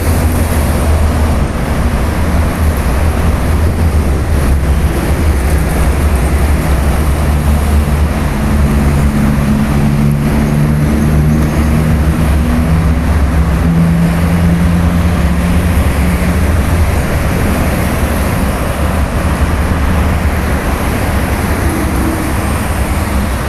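Steady traffic noise from a busy toll road, with a low rumble throughout and a passing vehicle's engine tone that swells and fades about midway.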